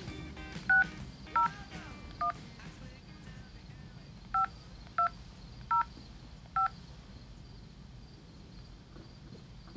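Touch-tone telephone keypad dialling a number. Seven short two-tone beeps: three within the first couple of seconds, then four more about two-thirds of a second apart.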